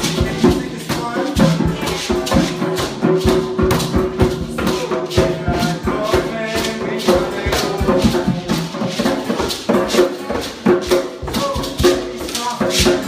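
A group improvising music together: a busy, loose mix of hand-percussion hits and rattles over held pitched notes.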